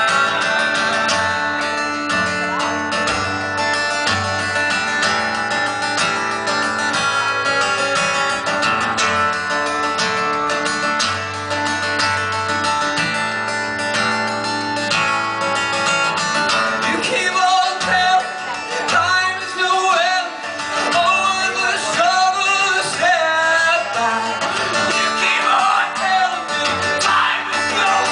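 Live acoustic guitar strummed steadily, with a man singing over it through the second half.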